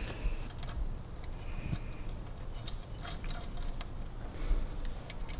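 Light metallic clicks and clinks of small parts being handled while the oil pump is fitted to a Harley-Davidson WLC engine crankcase, scattered irregularly, with a faint brief squeak twice.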